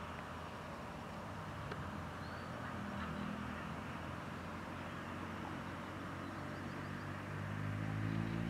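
PESA SA134 diesel railbus approaching slowly with a steady low engine hum; near the end its engine note rises in pitch and gets louder as it draws near.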